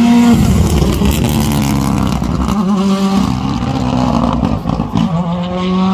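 Rally car engine at high revs as the car passes close on a wet tarmac stage, with a loud rush in the first second. The engine note then climbs and drops back at gear changes about three seconds in, at five seconds and near the end.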